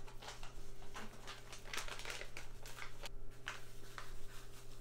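Ranch dip mix packet crinkling and rustling as the powder is shaken and tapped out into a small plastic bowl: an irregular run of quick dry crackles and taps.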